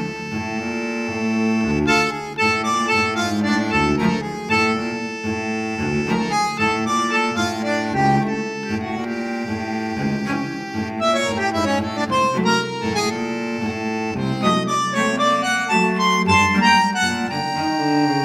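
Instrumental background music: a lively tune of quick, changing notes over a held low note.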